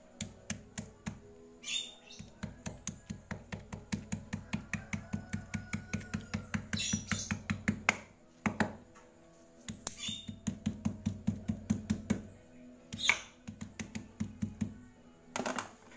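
A freshly killed eel being beaten over and over on a cutting board: sharp thuds at about five a second, in long runs with pauses between them. The beating softens the eel's bones for use as catfish bait.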